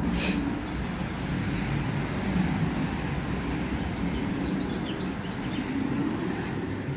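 Steady low rumble of outdoor background noise, with a short sharp click at the very start and a few faint bird chirps about four to five seconds in.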